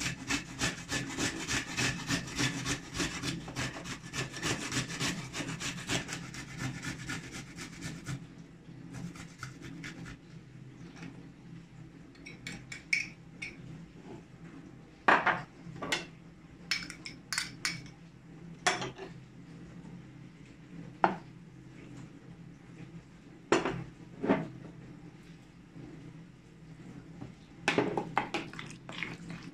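Hand grating on a metal box grater: quick, rasping strokes for about the first eight seconds. After that come scattered clinks and knocks of a metal spoon against a ceramic bowl and small dishes as spices and paste are spooned in and stirred.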